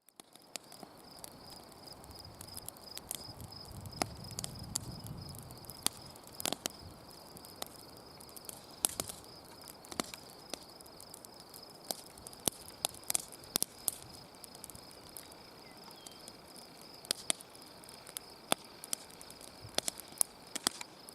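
Insects trilling steadily in a high, pulsing chorus, with irregular sharp clicks and crackles scattered throughout.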